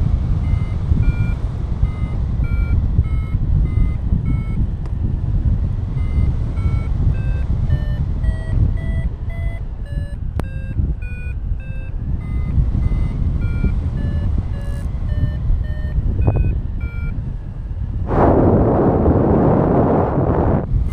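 Paragliding variometer beeping its climb tone in short beeps, about two a second, the pitch stepping up and down as the climb rate changes, over heavy wind rumble on the microphone. About 18 s in, a louder rush of wind noise swells for a couple of seconds.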